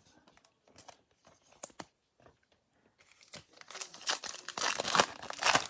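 Foil wrapper of a Panini Mosaic baseball card pack being torn open by hand and crinkling, starting about halfway through, after a few faint clicks.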